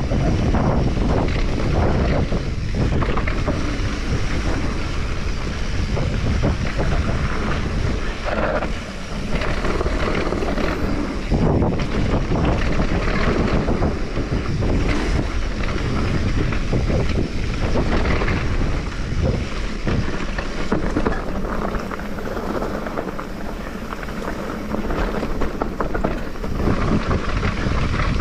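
Wind buffeting the microphone over a steady rumble and clatter from a mountain bike riding a downhill trail, easing a little a few times.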